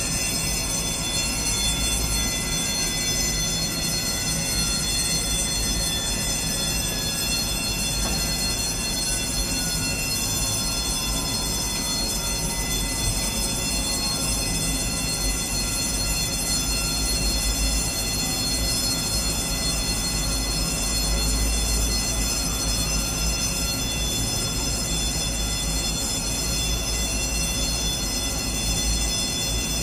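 Airbus A320 turbine whine: several steady high-pitched tones over a low rumble. A fainter whine falls in pitch over the first dozen seconds as an engine spools down after parking.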